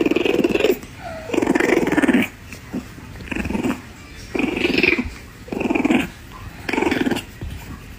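French bulldog puppy growling in about seven short, rough bursts, each under a second, as a hand tussles with it in play.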